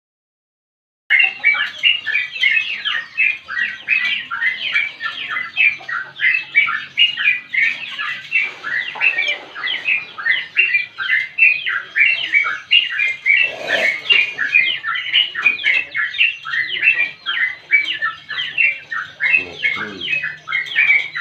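Yellow-vented bulbul (trucukan) singing a long, unbroken run of rapid chattering notes, several a second. The song starts about a second in, after a brief silence.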